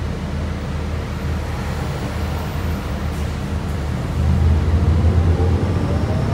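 Cabin sound of a 2008 New Flyer C40LFR transit bus on the move: its Cummins Westport ISL-G natural-gas engine and Allison automatic transmission running under a steady road hum. The low engine note grows louder about four seconds in.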